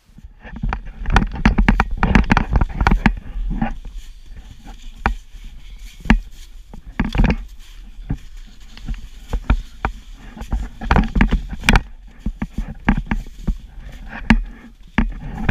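Handling noise of an action camera being carried and moved: irregular knocks, taps and scrapes on the casing, over a steady low rumble of wind on the microphone.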